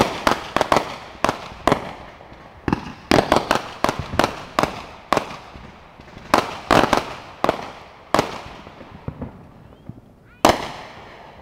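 Fireworks display: aerial shells bursting in a rapid series of sharp bangs, bunched in volleys, each trailing off briefly. The loudest single bang comes a little past ten seconds in, after a quieter spell.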